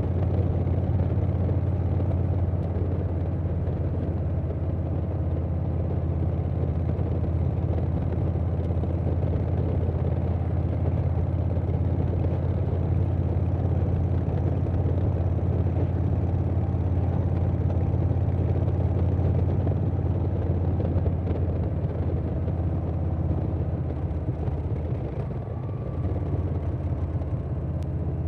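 2020 Harley-Davidson Softail Standard's Milwaukee-Eight 107 V-twin, breathing through a Vance & Hines Big Radius 2-into-2 exhaust and an Arlen Ness air cleaner, running steadily under way with wind noise. Near the end it eases off briefly, then picks up again.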